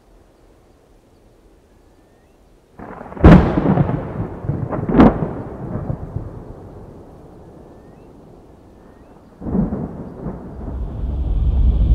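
Thunder: a sharp clap a few seconds in and another soon after, each fading into a low rolling rumble, then a further clap and a rumble that builds toward the end.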